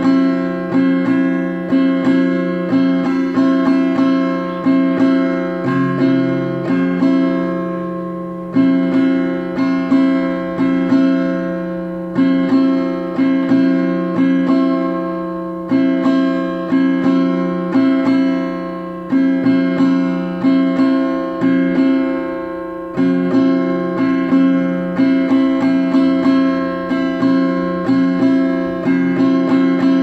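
Acoustic guitar strummed in a steady rhythm, the same chords struck several times a second in phrases a few seconds long.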